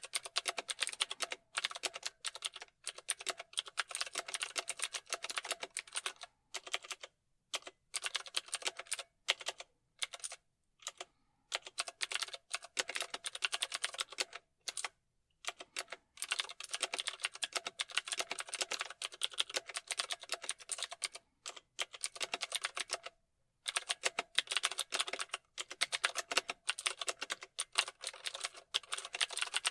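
Fast typing on a computer keyboard: rapid runs of key clicks broken every few seconds by brief pauses.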